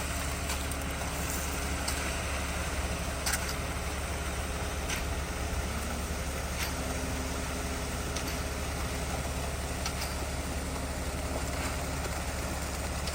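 Concrete mixer truck's diesel engine running steadily, with a few faint clicks scattered through.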